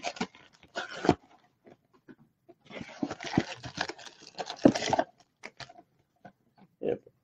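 Trading-card box packaging being handled and torn open: scattered clicks and taps, then a rustling, tearing stretch from about three seconds in that lasts about two seconds.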